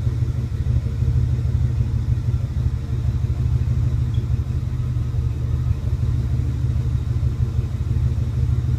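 1981 Pontiac Turbo Trans Am's turbocharged 301 V8 idling steadily at about 800 rpm after a cold start, with the rough idle of a cold engine.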